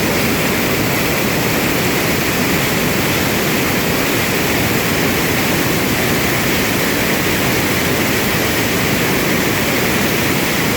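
A flood-swollen stream pouring over a falls: a loud, steady rush of water, heavier than the stream's usual flow.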